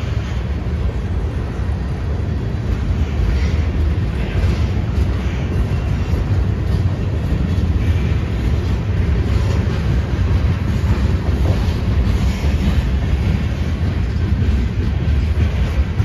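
Freight train cars (covered hoppers, a tank car and open hoppers) rolling past at close range: a steady rumble of steel wheels on rail with faint scattered clicks.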